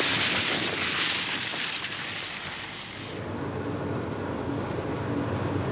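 Austin Metro driving through a water splash, the spray hissing loudly for about three seconds, then easing into a steadier engine drone heard from inside the car.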